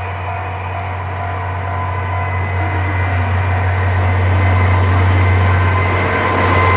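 DF200 diesel-electric locomotive approaching at the head of a freight train. A steady low engine drone comes with a few steady whining tones above it, and the whole grows louder.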